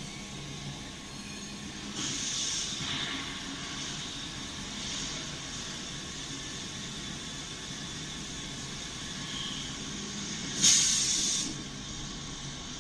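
High-frequency PVC tarpaulin welding machine running over a steady low hum, with air hissing out of its pneumatics: a hiss about two seconds in and a louder, sharp burst lasting about a second near the end.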